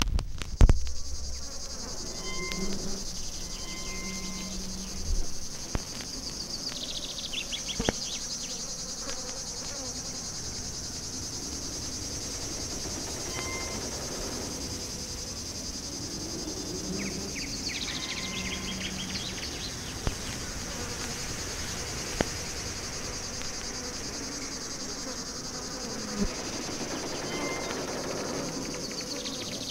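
Steady, high-pitched chirring of insects, with a loud click near the start and a few sharp clicks scattered through.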